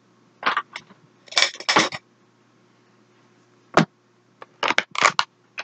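Makeup products and their packaging being handled and set down: irregular short clicks and clacks, in small clusters with quiet gaps between them.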